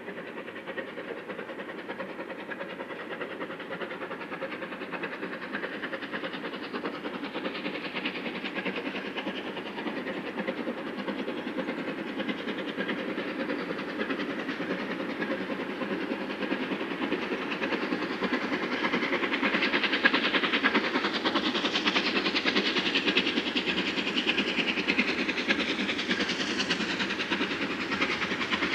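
Southern Railway Battle of Britain class steam locomotive 34067 Tangmere working hard, its rapid exhaust beats growing steadily louder as it approaches.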